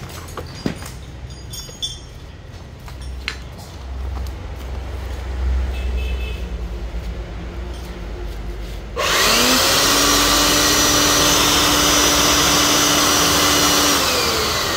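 Handheld 460 W electric blower switched on about nine seconds in: its motor spins up quickly to a steady whine over a loud rush of air, runs for about five seconds, then is switched off and winds down in falling pitch. Its carbon brushes spark heavily on both sides, which the seller says needs cleaning. Before it, a few handling clicks over a low rumble.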